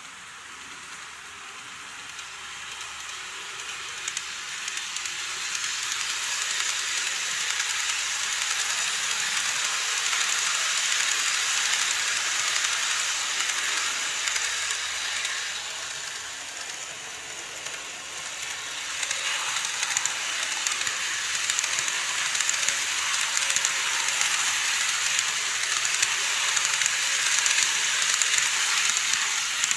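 N-gauge model trains running on plastic viaduct track: a steady rushing whir of wheels and motor with occasional clicks at rail joints. It grows louder as a Chuo Line E233 model passes close by, eases off, then builds again as an E351 'Super Azusa' model passes close near the end.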